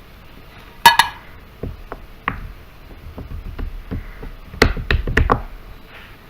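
Sharp clicks and knocks from handling things on a hard surface. There is one loud click about a second in, a few scattered taps, and then a quick cluster of clicks near five seconds.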